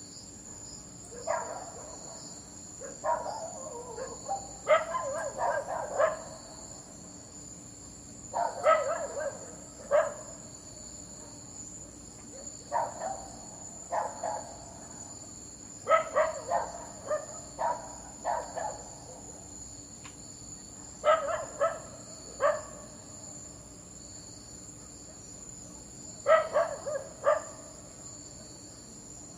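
A dog barking in runs of a few sharp barks every few seconds, over a steady high chirring of crickets.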